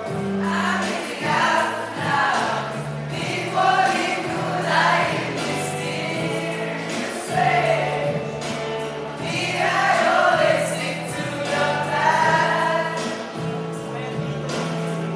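A group of voices singing a jingle together over a backing track with steady held bass notes.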